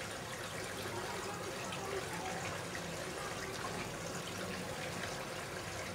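Steady outdoor background noise, a constant hiss-like haze, with faint indistinct voices in it.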